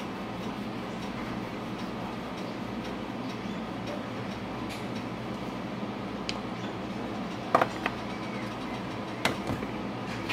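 Steady room hum with a few light clicks and taps from a black pepper tin being handled and shaken, the loudest a quick double click about seven and a half seconds in.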